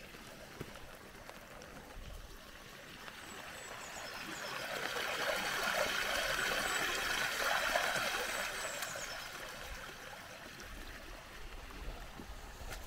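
Rainwater pouring out of a pipe and splashing into a full pond, still flowing in. It is a steady rush that grows louder toward the middle and fades again.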